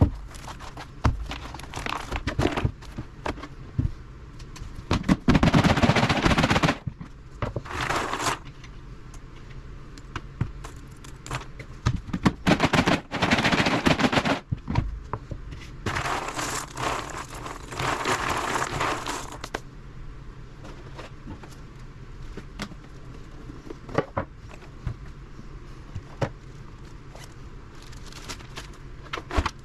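Handling noise in irregular bursts: a plastic storage tub and its lid knocking and clattering, a rolled puzzle mat rubbing, and a plastic zip bag crinkling, with sharp clicks and rustles.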